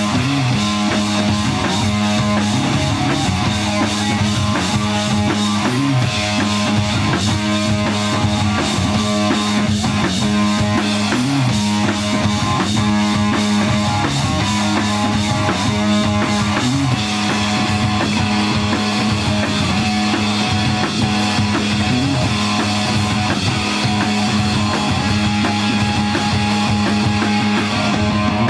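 Live rock band with no vocals: electric guitar, electric bass and drum kit playing loud and steady, with long held low notes under busy drumming.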